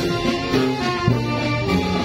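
Brass-and-reed marching band playing a tune: sousaphones carry a low bass line under saxophones and clarinets, with notes held and changing steadily.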